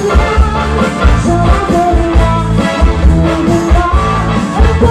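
Amplified live band music in a cha-cha-cha rhythm, with a steady bass-heavy beat under the melody.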